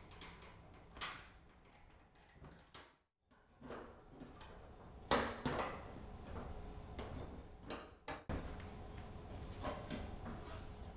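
Scattered light clicks and sheet-metal knocks as the baseboard heater's metal end cover is handled and fitted back over the wiring compartment, the sharpest click about five seconds in.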